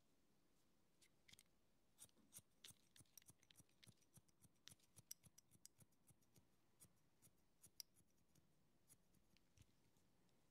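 Hairdressing scissors snipping through hair: soft, crisp clicks in quick irregular runs, several a second. They begin about a second in and thin out to occasional snips near the end.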